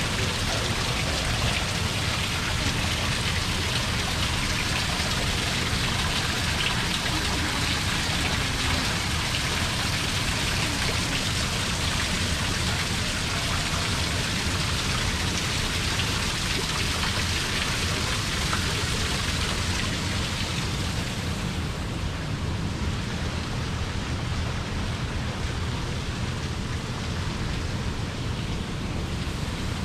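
Water from an artificial rock waterfall falling and splashing, a steady rain-like hiss over a low steady rumble; the brightest part of the hiss drops away about two-thirds of the way through.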